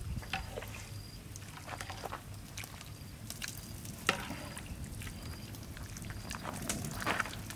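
Water dripping and trickling off freshly boiled whole chickens onto a woven bamboo basket: scattered small drips, with one sharper tap about four seconds in.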